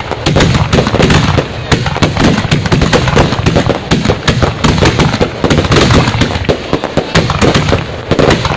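Fireworks going off in a dense, unbroken rapid crackle of sharp bangs.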